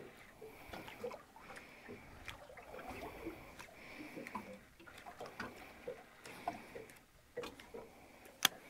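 Faint water lapping and trickling against a drifting boat's hull, with many small light ticks and one sharp click near the end.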